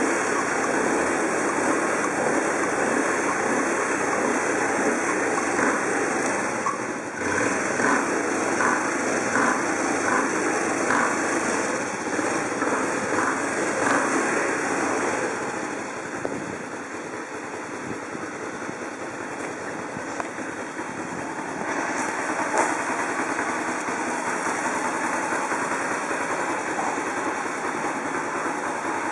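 Honda Super Cub 90's small air-cooled four-stroke single-cylinder engine idling steadily in neutral.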